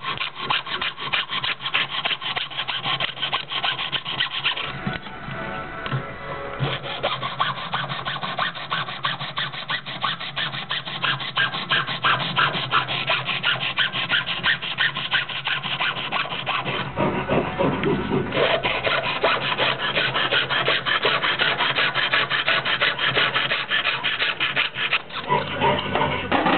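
Jeweler's saw cutting a pendant blank along a paper template, in quick, even back-and-forth strokes, with two short pauses about five seconds in and just past halfway.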